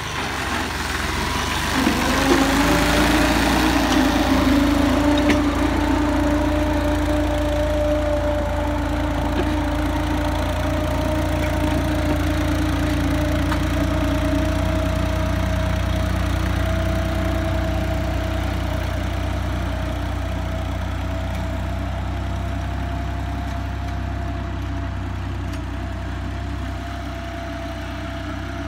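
Farm tractor engine working under load while pulling a tined cultivator through dry soil. The engine revs up about two seconds in, then holds a steady drone that slowly fades as the tractor moves away.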